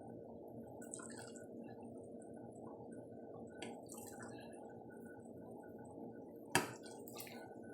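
Steady low background hum with a few light clicks and one sharp knock about six and a half seconds in, followed by a fainter second one.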